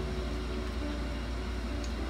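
Steady low hum of a window-type air conditioner running, with one faint tick near the end.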